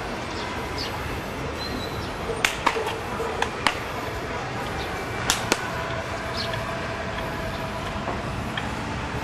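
Sharp slaps and snaps from a martial artist's strikes and kicks while performing a Mizongquan form: six short cracks in three close pairs over a steady outdoor background hiss.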